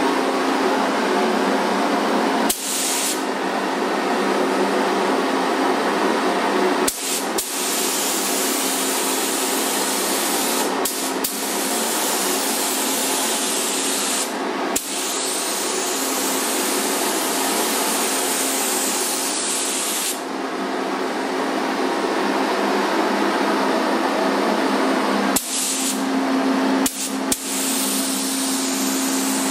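Compressed-air hiss of a gravity-feed paint spray gun spraying a car body molding, broken by short gaps about seven times where the trigger is let off between passes. A steady low hum runs underneath.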